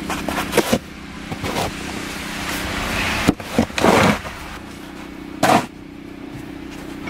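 Snow shovel scraping and pushing thick, heavy snow in several strokes, one longer push about halfway through, over a steady engine hum.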